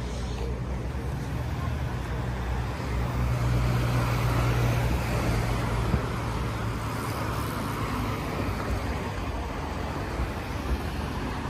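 Traffic noise with a low engine hum that swells about three to five seconds in, then eases off; a single sharp tick about six seconds in.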